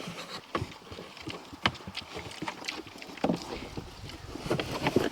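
Pigs eating potato peelings: irregular chewing, smacking and snuffling, with scattered short clicks.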